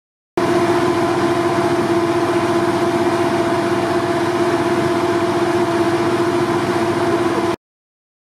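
An engine running steadily at an even speed: a constant hum with a higher steady whine over the noise. It starts abruptly just after the start and cuts off abruptly near the end.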